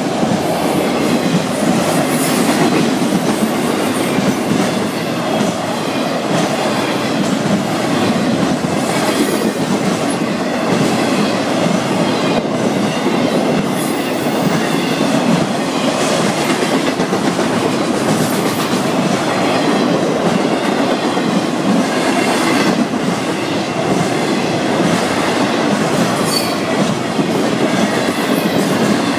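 Florida East Coast Railway freight train's intermodal cars rolling past close by: a steady, loud rumble of steel wheels on rail, with faint irregular ticks.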